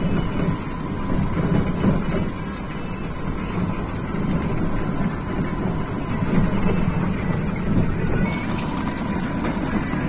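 Steady rumble of a moving three-wheeled rickshaw heard from the passenger seat: engine and tyre noise without a break, with a faint steady whine under it.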